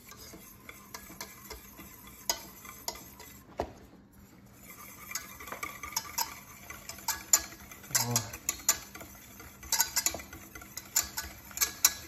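Wire whisk beating egg yolks with salt and dry mustard in a stainless steel saucepan, the wires clicking and scraping against the pan in a quick, uneven rhythm. The strokes get denser and louder from about halfway through. This is the early stage of making mayonnaise by hand, before the vinegar and oil go in.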